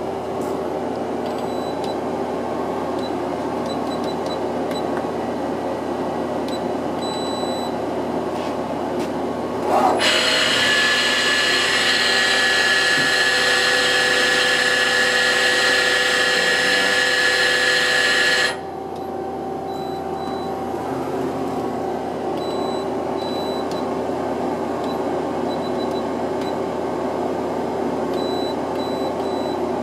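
Okuma LB-15M CNC lathe running with a steady hum. About a third of the way in, a small live-tool spindle spins up with a brief rising whine into a loud, steady, high-pitched whine, which cuts off suddenly about eight seconds later.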